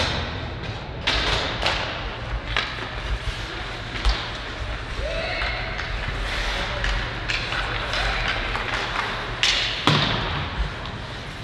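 Ice hockey play in a rink: a series of sharp knocks and clacks from sticks, puck and boards, over a steady background of spectator chatter and skating noise, with the loudest knock near the end.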